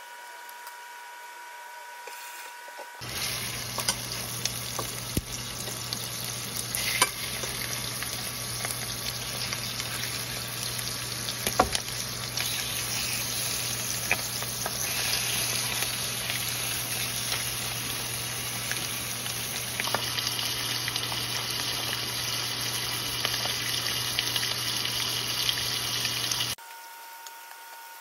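Skin-on chicken thighs frying in oil in a stainless steel pan: steady sizzling with scattered sharp pops. It starts abruptly about three seconds in and cuts off a little before the end.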